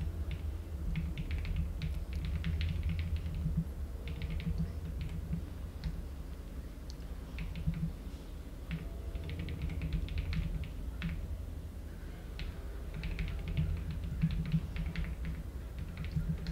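Typing on a computer keyboard: quick runs of sharp keystroke clicks broken by short pauses, over a low steady hum.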